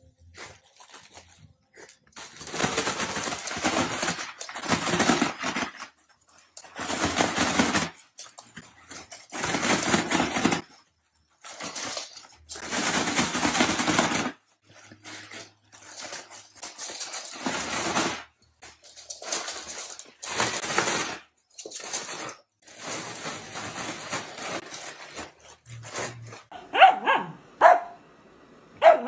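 Foil balloon crinkling and rustling in loud bursts of a few seconds each as a dachshund bites and drags it. Near the end, dachshunds bark sharply several times.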